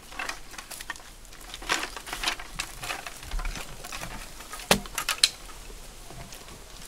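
Scattered knocks, slaps and rustles of hand work: wet mud clods dropped into a mud-coated hull and bamboo strips being handled. The two loudest sharp knocks come a little under five seconds in and just after five seconds.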